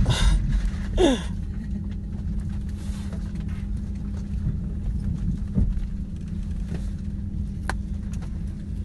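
Steady low mechanical hum, with a short falling voice-like glide about a second in and a few faint clicks later on.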